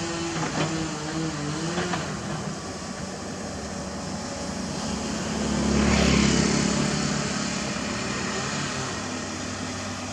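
Komatsu PC228 hydraulic excavator running as it digs, its engine and hydraulics working with a pitch that wavers as the boom and bucket move. There are two short knocks in the first two seconds, and the machine swells louder under load about six seconds in before settling again.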